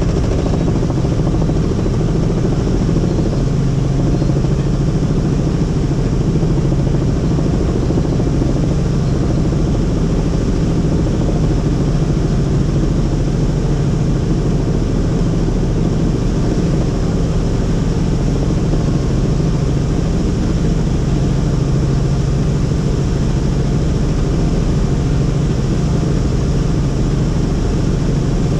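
Helicopter in flight: a steady drone of engine and rotor with a strong low hum that stays constant throughout.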